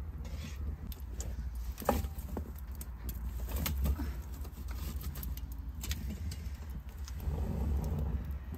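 Wood fire crackling under an iron wok, with scattered pops and clicks over a steady low rumble.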